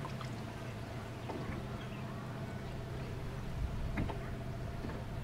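An engine running steadily: a low, even drone with a steady tone above it. Two short knocks come about three and a half and four seconds in.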